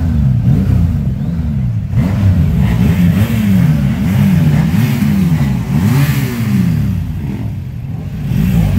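Several motorcycle engines revving over and over, throttles blipped so that each rev rises and falls in pitch, the revs overlapping one another.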